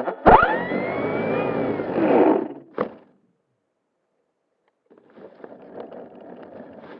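A sharp thud, then about two and a half seconds of scraping, rattling noise with a whine that rises and then falls, ending with a click; after a pause, a fainter rustling with small ticks.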